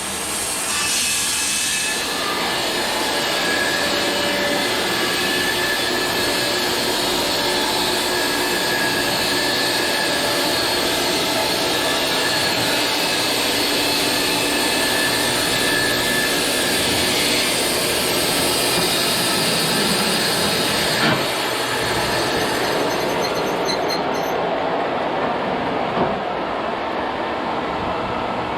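Bandsaw mill running steadily, its blade cutting through a small log. Near the end the high hiss drops away while the steady running sound carries on.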